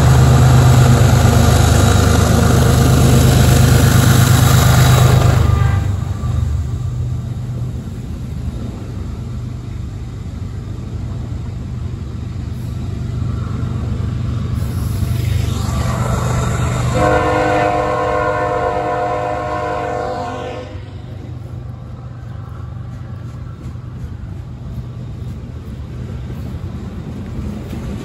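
CSX freight train passing close by: the diesel locomotive's air horn sounds a long chord over the engine's low hum for the first five seconds or so, then cuts off. The horn sounds again for about three seconds starting some 17 seconds in, while the freight cars keep rolling past with a steady rumble.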